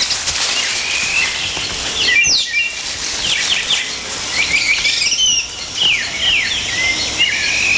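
Rainforest ambience: many short, high chirping calls, most of them falling in pitch, over a steady high hiss.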